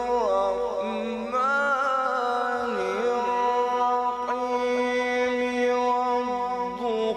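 A man's voice in melodic Quran recitation (tilawat), drawing a vowel out into a long, ornamented note through a microphone. The pitch glides and turns near the start and again about three seconds in, then holds steady for several seconds before breaking near the end.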